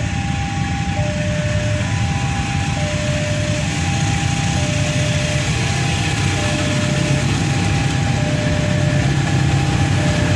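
A two-tone electronic railway warning alarm repeats, alternating a higher and a lower tone, each held just under a second. Under it runs the steady low rumble of an approaching KAI diesel locomotive, growing slightly louder toward the end.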